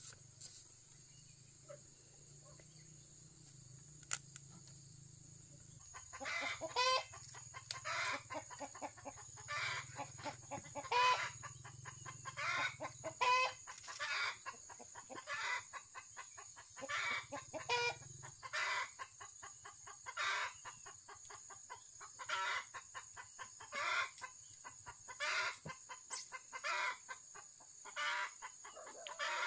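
A chicken calling over and over in short, loud squawks, about one every second or so. The calls start about six seconds in, after a quieter opening.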